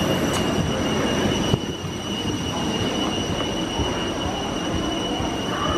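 Steady rumble with a high, steady whine: airport apron noise from aircraft and ground equipment. It drops sharply about a second and a half in, with a click as a door shuts, and carries on more muffled inside the boarding corridor.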